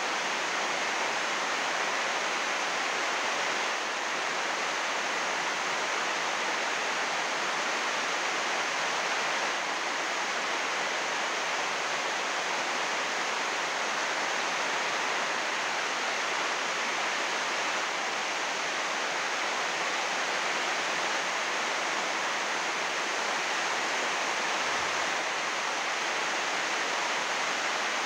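Heavy rain falling on a greenhouse roof of 80-micron UV plastic sheeting, a steady, even hiss with no single drops standing out.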